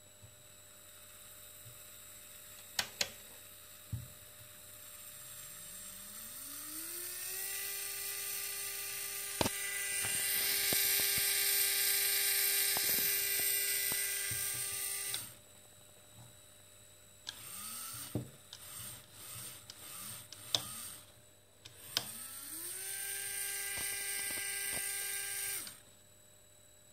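Small three-phase motor driven with an approximate sine wave from an Arduino: a whine that rises in pitch as the motor spins up over a few seconds, holds steady for several seconds, then stops abruptly. After several brief starts and stops it spins up again and runs steadily before cutting off near the end. There are a few sharp clicks along the way.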